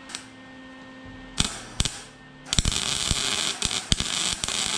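MIG welder arc tack-welding a steel exhaust header pipe. Two brief crackles about a second and a half in, then a steady crackling arc from about two and a half seconds in.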